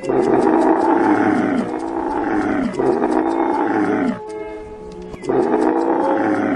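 A large animal's loud drawn-out calls, each falling in pitch, with a pause about four seconds in before a last call near the end. Soft guitar music plays underneath.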